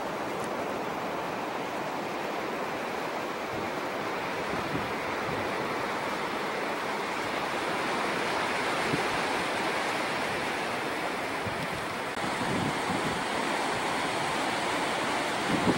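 Ocean surf breaking and washing up on a beach, a steady rushing wash that grows a little louder about twelve seconds in.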